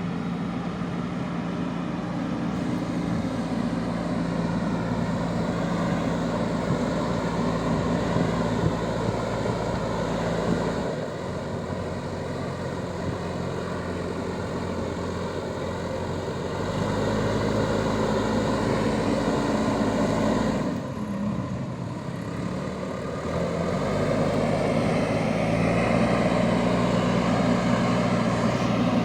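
JCB backhoe loader's diesel engine running steadily under working load, its pitch and loudness shifting several times: it drops about eleven seconds in, picks up around seventeen seconds, dips briefly near twenty-one seconds and rises again from about twenty-four seconds.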